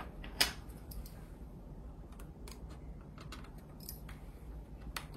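Scattered small clicks and taps of hands working a plastic cover loose inside an iMac, with sharper clicks about half a second in and near the end.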